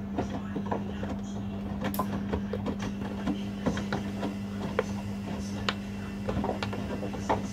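Washing machines running a wash cycle: a steady motor hum with irregular soft knocks and clicks of laundry tumbling in the rotating drums.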